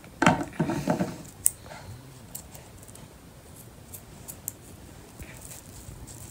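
Small scissors snipping ribbon: a few light, sharp snips spread over several seconds, after a brief muffled handling sound in the first second.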